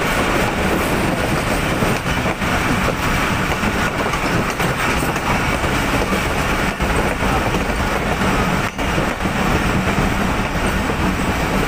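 Pakistan Railways passenger coaches rolling along the track as the train pulls into a station: steady wheel-and-rail noise, heard from aboard the moving train.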